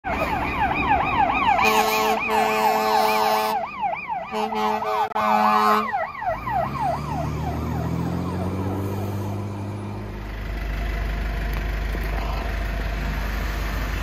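Fire engine siren wailing on a fast yelp, rising and falling two or three times a second, with several long air horn blasts sounded over it. After about six seconds the siren stops and the truck's engine rises in pitch as it accelerates away, settling into a steady low rumble.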